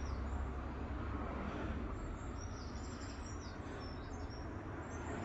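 Small birds chirping, a scatter of short high chirps and falling whistles starting about two seconds in, over a steady background hiss.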